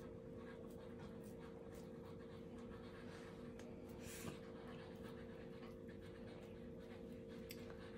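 Quiet room tone with a steady low electrical hum, and faint soft squishing of raw ground beef being rolled into a ball between a child's hands.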